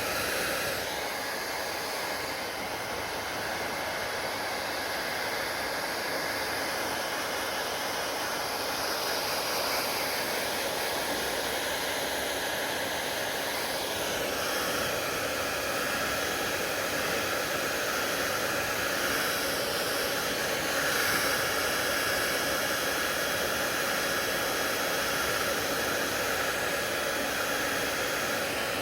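Hair dryer blowing steadily: a constant rushing whoosh of air and motor, whose tone shifts slightly about halfway through.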